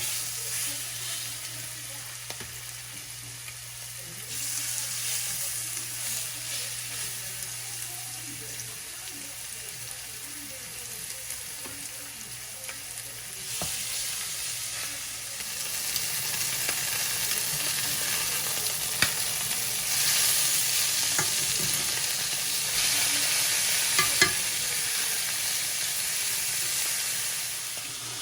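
Food sizzling as it fries in a pan, getting louder in steps, with a few sharp clicks of a utensil against the pan. A low steady hum runs underneath and stops about nine seconds in.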